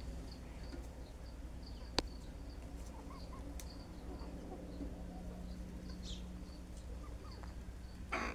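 Quiet farmyard ambience: faint high chirping from birds or insects repeats through it over a steady low hum. There is one sharp click about two seconds in and a short rustling burst near the end.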